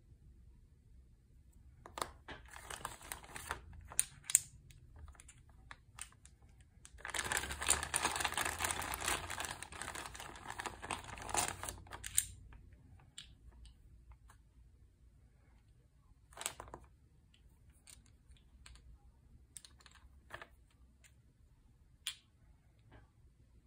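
Small plastic dice clicking against each other in the hands, with a stretch of plastic bag crinkling and rustling about a third of the way in, the loudest part. After it, a few scattered single clicks as dice are set down.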